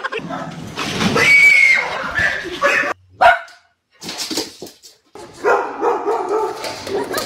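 Dog barking and whimpering, the sound cutting off and changing abruptly a few times.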